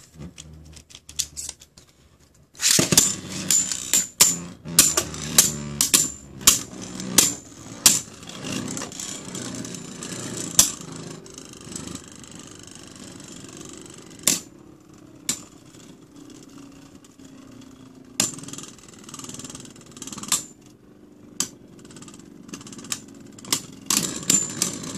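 Two Beyblade tops, Kerbeus Wing Fusion and Spriggan Heavy Defense, spinning and clashing in a stadium. A steady whirring scrape runs under sharp clacks as they collide, coming in quick succession from about three seconds in, then thinning out, and picking up again near the end.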